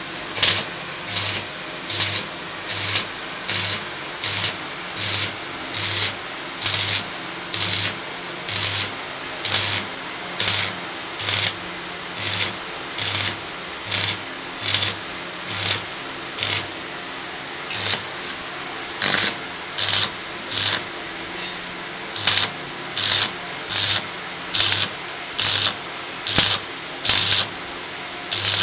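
Stick (arc) welding on steel square tubing: the arc crackles and hisses in short, even pulses a little under two a second, each with a low hum, with a brief break about two-thirds of the way through.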